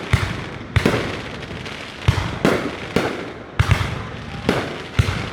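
Fireworks bursting in the sky one after another, about two bangs a second, each sharp bang followed by a fading rumble.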